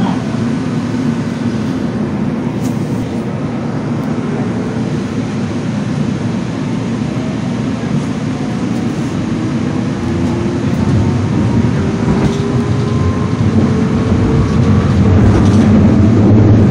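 Inside a moving train carriage, most likely a metro: a steady low rumble of the running train, with a faint motor whine that slowly rises in pitch as it gathers speed, getting louder near the end.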